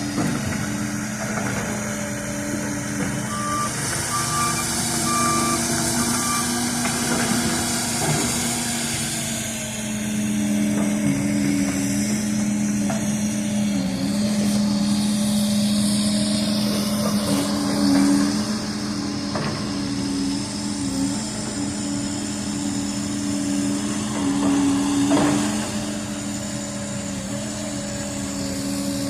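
Excavator diesel engines running steadily, with the engine note swelling louder twice in the second half, and a short run of four high beeps from a machine's warning beeper a few seconds in.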